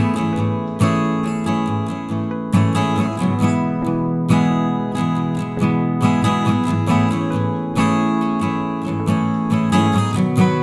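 Background music: acoustic guitar strumming chords, with strums at a steady pace.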